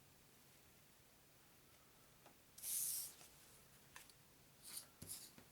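Quiet room, then about two and a half seconds in a brief dry rustle of cardboard trading sticker cards being slid and handled, followed by a few faint taps and rustles near the end.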